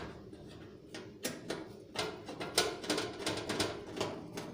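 A screwdriver driving a screw to fix a hard disk into a metal PC case's drive bay: a run of irregular metallic clicks and ticks, several a second.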